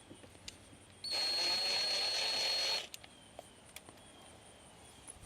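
Power drill/driver running for just under two seconds, backing out a screw, with a steady high whine from the motor.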